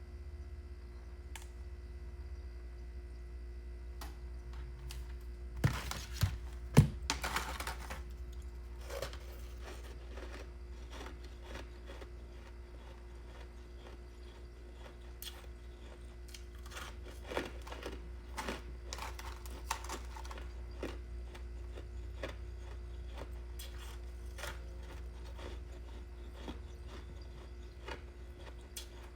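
Chewing and crunching mouthfuls of frozen freezer-frost ice balls, made crunchy rather than soft by being pre-made. Irregular crisp crackles and clicks, the loudest cluster about six to seven seconds in and another busy stretch past the middle, over a steady low hum.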